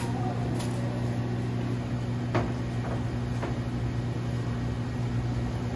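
Steady hum of commercial kitchen equipment over spiral potatoes frying in a deep fryer's oil. A light knock about two and a half seconds in and a fainter one a second later, as the skewered potatoes are handled.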